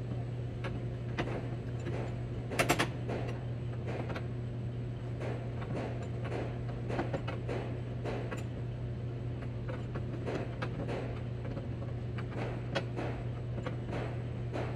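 A wrench clicking and clinking on the nuts of a steel headlight mounting bracket as they are run down and tightened. Short irregular metal clicks, with a louder cluster of a few about two and a half seconds in, over a steady low hum.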